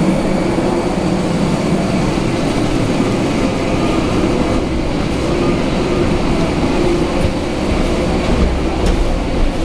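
Steady, loud mechanical rumble and hiss of airport and aircraft machinery, heard inside an enclosed jet bridge.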